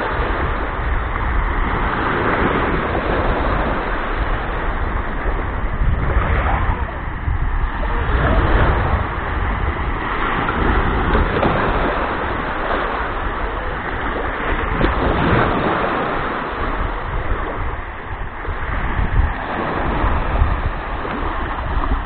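Small waves breaking and washing up onto a sandy shore in slow, repeated swells, with wind rumbling on the microphone.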